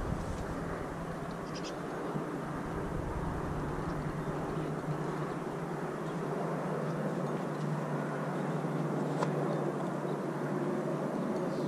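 Steady outdoor background noise with a constant low hum and a few faint clicks.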